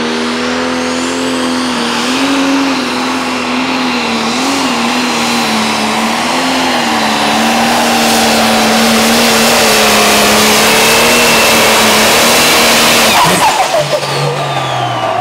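Turbocharged diesel engine of a New Holland pro stock pulling tractor running at full throttle through a pull, a high turbo whistle rising as it spools up at the start. About 13 seconds in the throttle is cut: the engine drops suddenly to idle and the whistle falls away.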